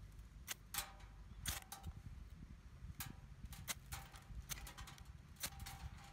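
Ferro rod fire starter struck with a metal striker: about a dozen short, sharp scrapes at uneven intervals, throwing sparks onto twine tinder to light a fire.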